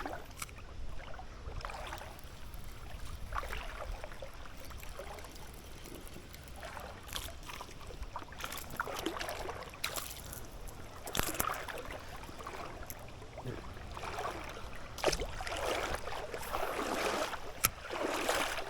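River water splashing and rushing in uneven swells, with a few sharp clicks.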